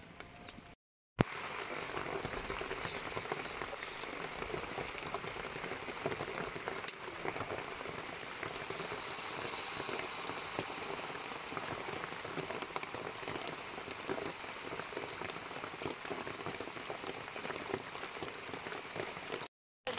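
Battered pineapple rings deep-frying in hot coconut oil in a steel wok: a steady, dense sizzle and crackle. It starts suddenly about a second in.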